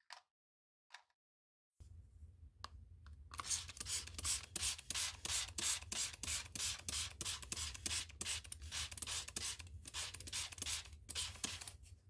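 Rhythmic scraping strokes worked by hand, about three a second, over a low steady hum.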